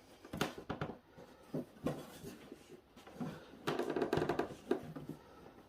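Hard plastic toy parts clicking and knocking as a bridge piece is worked into its slots in a toy playset, in a scatter of short clicks with a denser run near the end.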